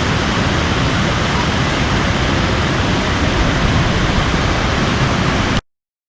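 Waterfall rushing: a steady, loud roar of falling water that cuts off suddenly near the end.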